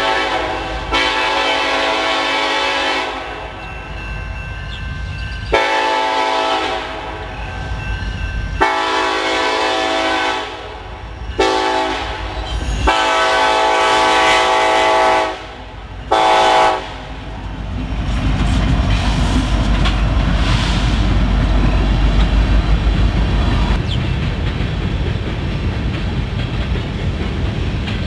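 A diesel freight locomotive's air horn sounds a chord in five blasts for a grade crossing: two long, a shorter one, a long one, then a short toot. After that the locomotives' engines and wheels rumble steadily as the BNSF units roll by, with clickety-clack from the rails.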